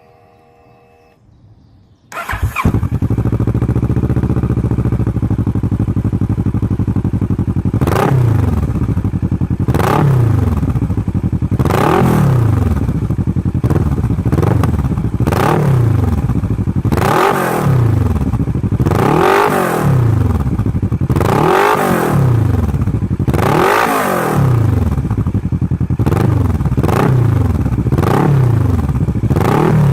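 Kawasaki ER6N parallel-twin engine through a Blackwidow 200mm exhaust can with its full baffle fitted, starting up about two seconds in and idling briefly. It is then blipped up and down over and over, about once every two seconds, with a burble and a bit of backfire as the revs drop.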